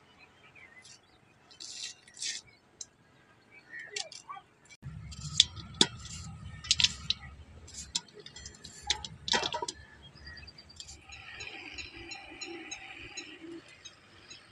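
Garlic being peeled with a small knife over a steel pot: scattered sharp clicks and clinks as the skins are cut and the cloves drop against the metal, thickest in the middle with a low rumble under them. Birds chirp in the last few seconds.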